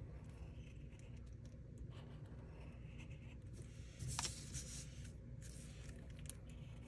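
Black felt-tip marker drawing short strokes on paper, a faint scratchy hiss that comes and goes. About four seconds in there is a brief louder rustle as the paper is shifted and turned on the table.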